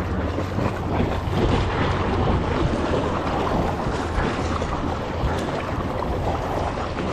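Steady wind buffeting the microphone over choppy water sloshing around a kayak, with a low continuous rumble underneath.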